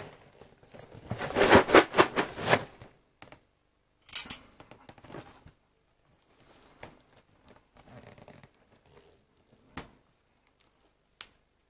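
Cardboard cereal box being handled and turned over: a dense run of scraping and crackling in the first few seconds, a shorter burst about four seconds in, then faint rustling and a couple of light knocks.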